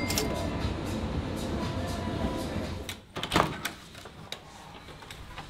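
Low background chatter and din at first; then, about three seconds in, a sharp clack of a hotel room door's key-card lock and handle as the door is opened, followed by a few lighter clicks.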